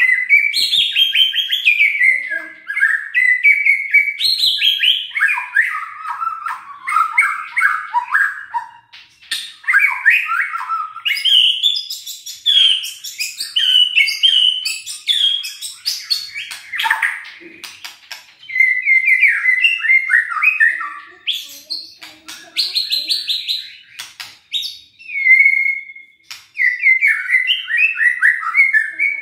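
White-rumped shama (murai batu) singing a long run of varied whistled phrases and quick trills, with bursts of rapid clicking notes, broken by short pauses.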